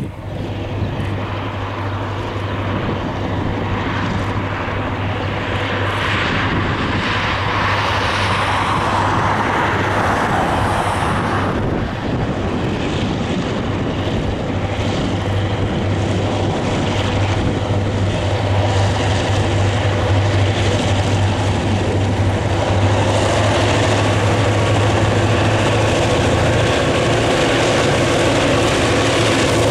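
Diesel locomotives of a freight train, led by GTW 5856, drawing closer with their engines running in a steady, deep drone that grows louder.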